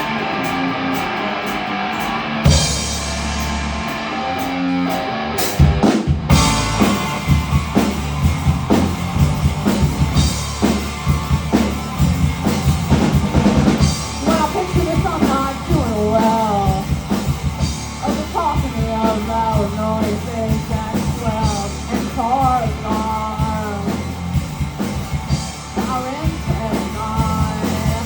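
Rock band playing live: a guitar opening, then drums and bass come in about two and a half seconds in, and the full band is driving by about six seconds. A singer's voice joins about halfway through.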